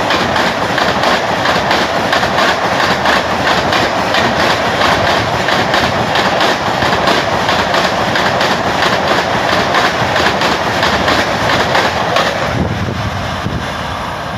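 Coaches of the Tejas Rajdhani Express passing at about 130 km/h: a loud, dense rush of wheel and air noise with a rapid, regular clickety-clack of wheels over rail joints. About twelve seconds in it gives way to a quieter low rumble.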